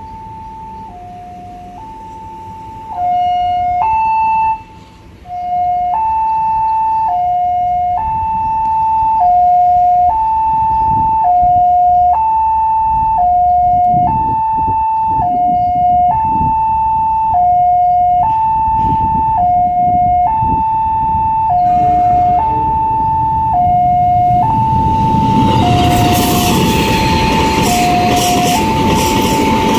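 Railway level-crossing warning alarm sounding, an electronic signal switching between a higher and a lower tone about once a second. About 25 seconds in, a KAI passenger train arrives and passes, its rumble and wheel clatter rising over the alarm.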